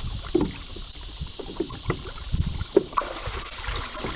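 Water sloshing and several short knocks against an aluminium boat hull as a person climbs a rope ladder up out of the river, over a steady high insect chorus.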